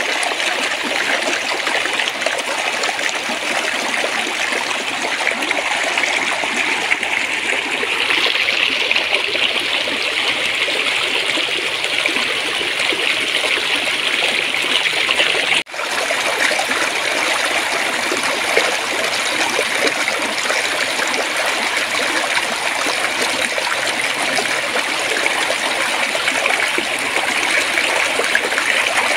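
Gently flowing stream water babbling steadily, with a split-second gap about halfway through.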